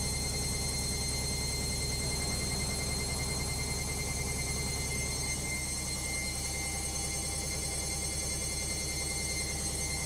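LOGIK front-loading washing machine on its spin cycle, the drum turning fast: a steady low hum with a fast, even beat and a thin high whine over it.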